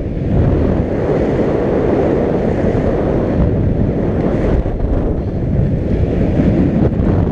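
Steady, loud wind rush buffeting a skater-worn action camera's microphone during fast speed skating on ice.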